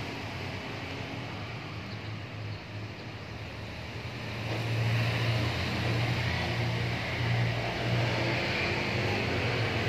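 A steady low engine drone with a noisy hiss above it, growing louder about halfway through.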